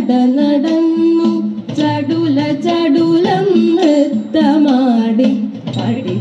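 Female voice singing a thiruvathirakali song in long, wavering held notes, with light instrumental accompaniment.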